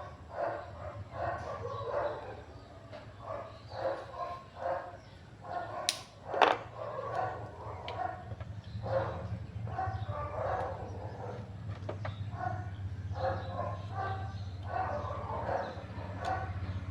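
A dog barking and whining in repeated short calls over a steady low hum, with a sharp click about six seconds in.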